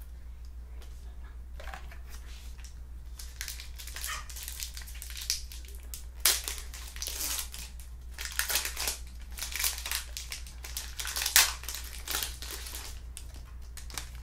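Crinkling and crackling of a foil trading-card pack wrapper as it is handled and torn open, in irregular bursts that start a few seconds in, with the sharpest crackles near the middle and near the end. A steady low hum runs underneath.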